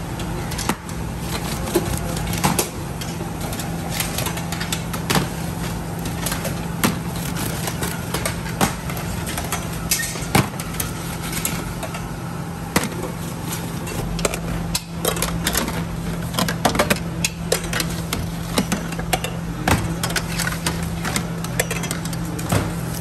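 Metal baking trays clanking and scraping as they are slid in and out of a bakery oven, with frequent irregular sharp knocks, over a steady low machine hum.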